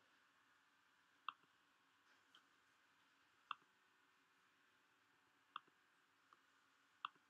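Computer mouse button clicking, four single clicks about two seconds apart, over near-silent room tone.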